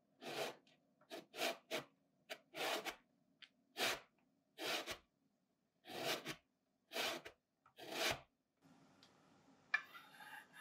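An orange being zested on the fine side of a stainless steel box grater: about ten rasping strokes, unevenly spaced, as the peel is rubbed down the metal.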